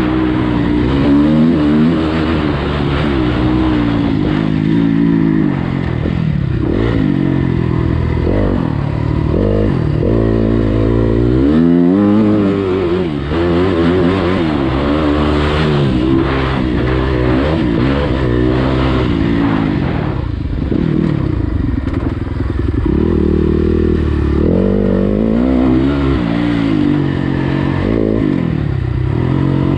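Motocross bike engine being ridden hard, revving up and easing off over and over, its pitch climbing and falling with the throttle and gear changes.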